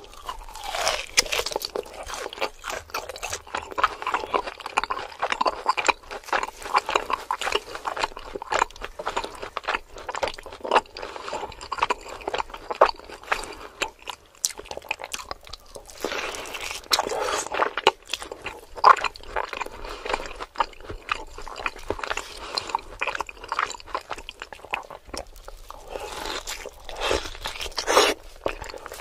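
Close-miked mouth sounds of a man biting into and chewing a large chunk of seared roast beef: wet chewing with many small clicks, easing off briefly twice.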